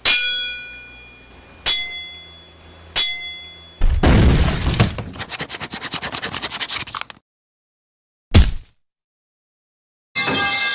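Cartoon fight sound effects: three metallic clangs with long ringing tones over about three seconds, then a rush of noise that breaks into rapid fluttering pulses for about three seconds. A short thud follows, and near the end a crash with ringing tones.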